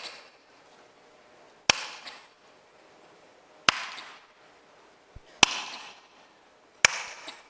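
Single sharp hand claps, four of them about one and a half to two seconds apart, each followed by a brief noisy tail. Each clap is the cue for a quick cough and pelvic-floor contraction.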